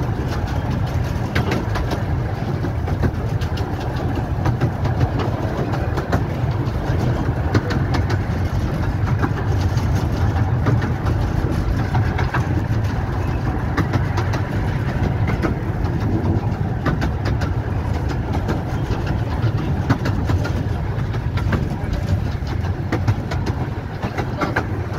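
A 15-inch-gauge miniature railway train running along the track, heard on board: a steady low rumble with frequent clicks and rattles from the wheels and rails.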